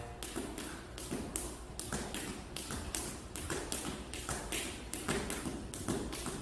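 Speed jump rope slapping the floor in a fast, even rhythm, about three to four sharp slaps a second.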